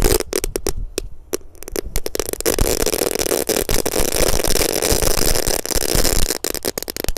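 Two packs of dino-egg crackling fireworks going off together in a pipe-lined hole in the ground. Rapid sharp pops build a couple of seconds in into a dense crackling hiss, then thin out to scattered pops near the end.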